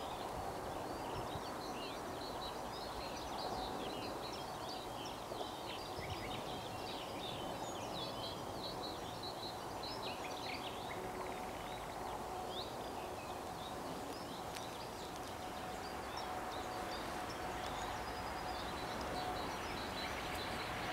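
Songbirds chirping and singing over a steady outdoor background hiss, with a faint steady tone in the middle stretch.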